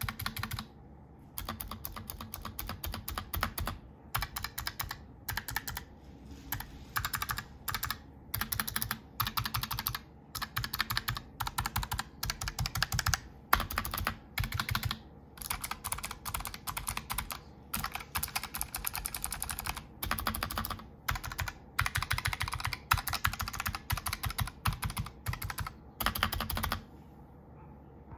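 Razer Huntsman Mini keyboard being typed on in quick bursts with short pauses. Its optical switches are lubed, a foam pad is added inside the case, and it is fitted with G.Skill Crystal Crown keycaps. The typing stops near the end.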